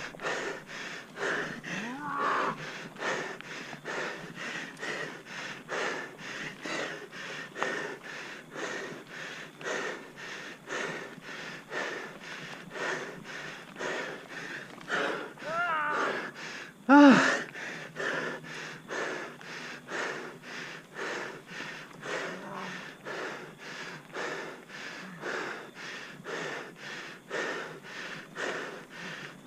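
A cyclist breathing hard on a steep uphill climb: rhythmic, heavy, noisy breaths, about three every two seconds. A loud voiced "ah" breaks in about seventeen seconds in.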